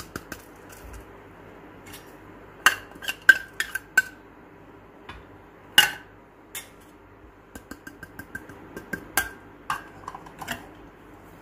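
Small dishes clinking against a glass mixing bowl as spices are tipped in one by one: scattered sharp clinks with a short ring, and a run of light quick taps about eight seconds in.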